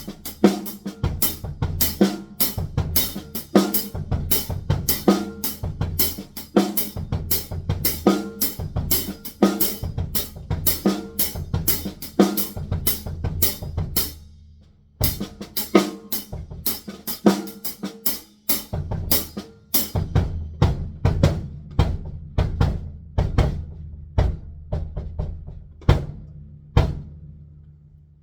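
Drum kit played in a steady, fast groove of snare, bass drum and cymbals. It breaks off for about a second around halfway, resumes, and the hits grow sparser until they stop shortly before the end.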